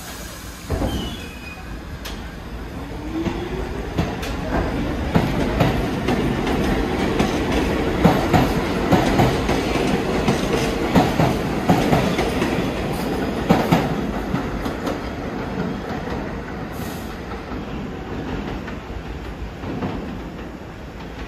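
New York City subway train running past on the BMT Brighton Line, its wheels clicking over the rail joints. It grows louder over the first few seconds, is loudest through the middle, and fades away toward the end.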